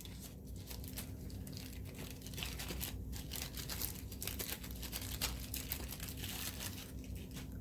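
Continuous crinkling and rustling of plastic with many small clicks as the toy figure's small plastic accessories are handled and put away.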